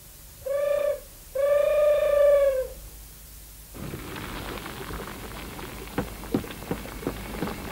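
An owl hoots twice on a steady pitch, a short hoot and then a longer one. About four seconds in, a fire starts crackling faintly under a cooking pot in a hearth, with scattered small pops.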